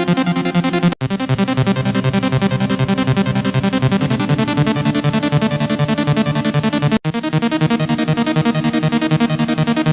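Electronic music loop: a fast, pulsing synth beat with stacked buzzy notes, cutting out for a split second about a second in and again about seven seconds in, where the loop restarts.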